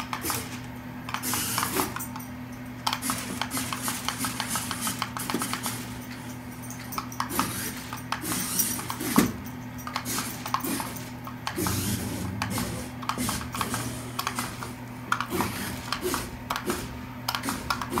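Light, irregular clicking and tapping from steering an Air Swimmers remote-control shark (its remote's buttons tapped a little at a time), over a steady low hum.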